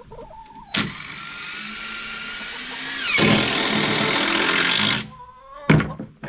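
Power drill driving a 3-inch wood deck screw through plywood into a 4x4 leg: the motor runs for about four seconds, growing louder about three seconds in as the screw bites, then stops. A few sharp knocks follow near the end.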